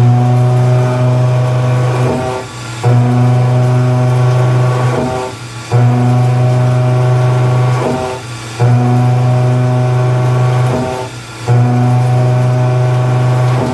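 A 2-inch Ingersoll plunge-milling cutter on a Mazak CNC machine, plunging into hot-rolled steel. Each plunge is a loud, steady pitched hum about two and a half seconds long, followed by a short break as the cutter retracts and steps over, repeating about every three seconds.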